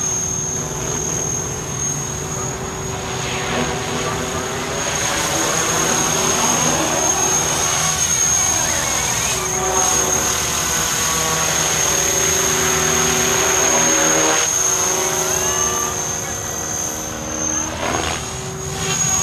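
Align T-REX 500 EP electric RC helicopter flying 3D manoeuvres: its rotor and electric motor run with a steady high whine, while the rotor tone rises and falls in pitch as it swoops and turns.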